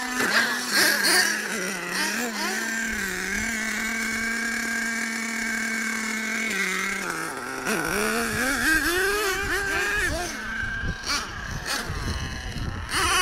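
Small nitro engines of RC monster trucks running. One holds a steady high-pitched drone for about seven seconds, then the engine notes waver and rev up and down.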